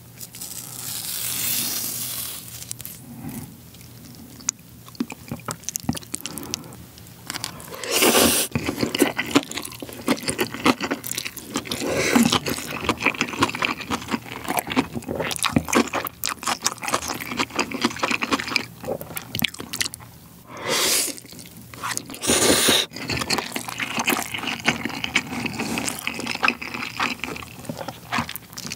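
Close-miked eating sounds: kimchi cabbage torn apart by hand at the start, then wet chewing and crunching of Chapagetti noodles with kimchi, with three loud slurps of the noodles.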